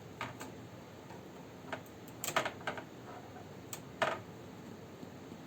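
A handful of light, irregular clicks and taps as the small plastic and metal parts of a graphics card are handled during disassembly.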